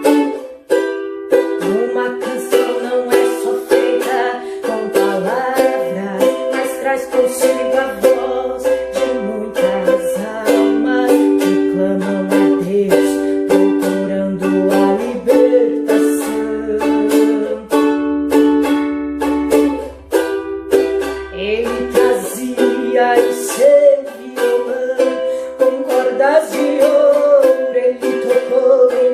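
Ukulele strummed in steady, even strokes, playing a hymn's chords and melody.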